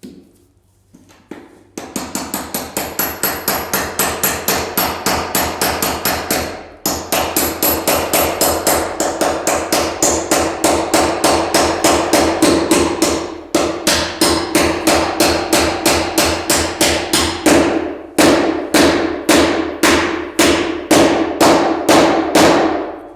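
Hammer blows struck in a steady run, about three a second, with short breaks after roughly seven, thirteen and eighteen seconds.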